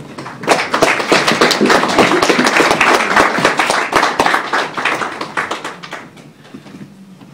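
Audience applauding, dense and steady at first, then thinning out and dying away near the end.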